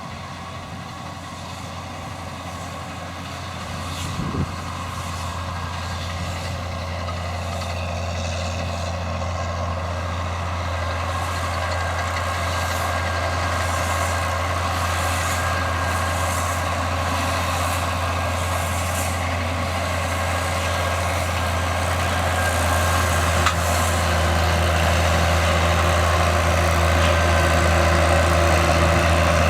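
John Deere 7710 tractor's six-cylinder diesel engine running with a Krone round baler-wrapper in tow: a steady low drone under a clatter of machinery. It grows steadily louder, with a brief knock about four seconds in.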